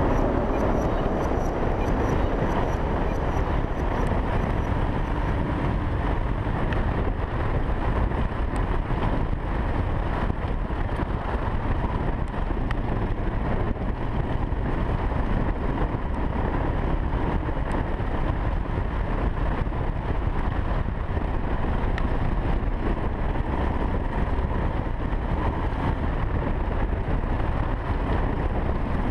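1984 Honda XL600R's single-cylinder four-stroke engine running at a steady cruise, mixed with wind rush on the chest-mounted camera.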